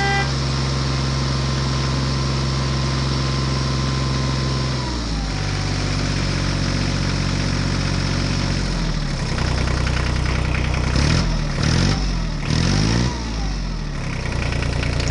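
Engine sound effect laid over play with plastic toy construction vehicles. The engine idles steadily, shifts pitch about five seconds in and again near nine seconds, then revs up and down a few times between about eleven and thirteen seconds.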